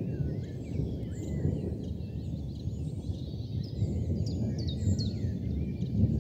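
Birds chirping in many short calls, some sweeping quickly down in pitch, over a low, uneven rumbling noise.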